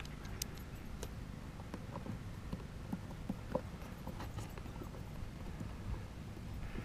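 Faint scattered clicks and taps of a hand screwdriver turning screws into the plastic housing of a Thetford RV toilet, fastening its new water valve, over a steady low rumble.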